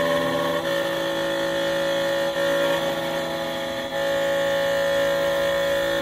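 Xhorse Condor XC-Mini Plus automatic key cutting machine running, its spindle cutter milling the second side of a high-security double-sided key with a steady whine whose pitch shifts slightly a couple of times.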